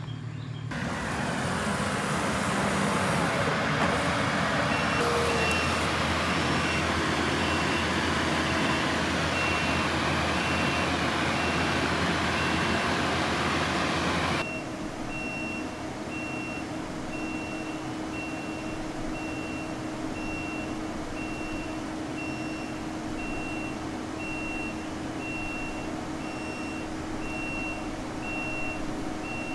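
Heavy tracked loader's diesel engine running, with its reversing alarm beeping steadily about once a second. Partway through, the engine noise drops abruptly to a lower level while the beeping goes on.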